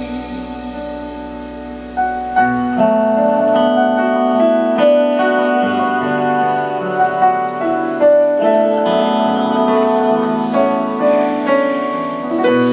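Live band playing an instrumental passage of a slow song: sustained keyboard chords with acoustic guitar and no singing, growing louder about two seconds in.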